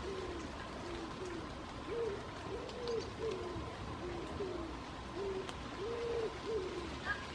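Pigeons or doves cooing: a steady run of soft, low coos, one after another, each rising and falling in pitch.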